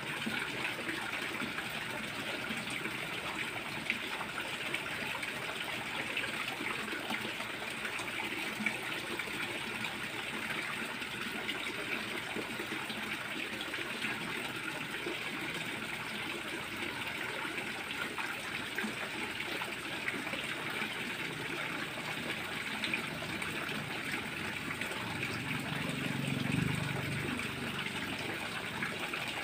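Water pouring steadily from an inlet pipe and splashing into a small koi pond, with a brief low rumble near the end.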